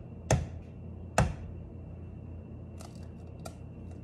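An egg knocked twice against the rim of a plastic mixing bowl to crack it, two sharp knocks about a second apart, followed a couple of seconds later by faint clicks of the shell being pulled open.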